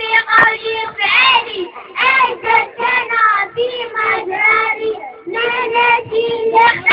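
Group of young girls singing together, phrase after phrase, over a steady held tone that stops about five seconds in.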